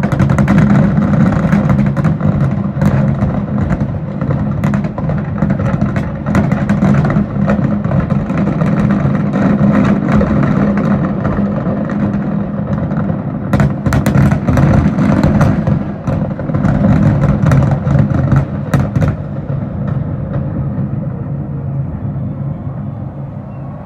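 Fireworks barrage: a dense, continuous rumble of bursts with many sharp cracks and bangs, thinning out and quieter over the last few seconds.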